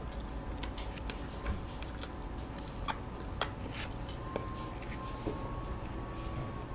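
Quiet chewing of soft Korean walnut cakes (hodu-gwaja), with scattered small mouth clicks and smacks.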